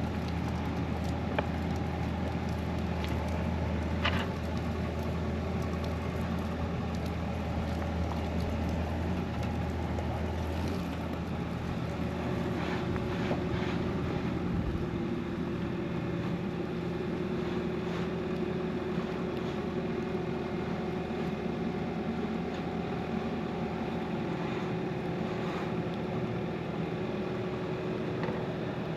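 Diesel engine of a Bobcat E55 compact excavator running steadily, its engine note shifting about ten seconds in. There is a sharp metallic knock about four seconds in.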